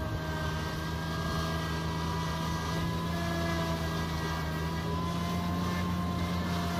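JF Double C-240 forage harvester, PTO-driven by a John Deere 6125J tractor, chopping grass for silage and blowing it into a truck. A steady low drone with a higher whine over it; the harvester's noise outweighs the tractor engine.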